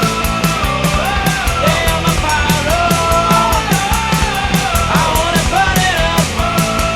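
Background rock music with a steady fast beat and a melodic lead line that moves up and down.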